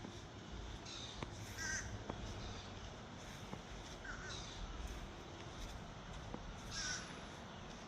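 A bird calling three times, short calls spaced about two and a half seconds apart, over a steady low background.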